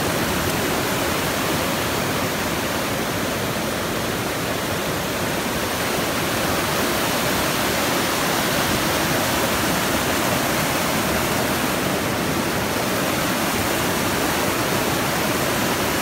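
Rushing whitewater of a fast mountain stream tumbling over boulders, a steady even rush of water that does not change.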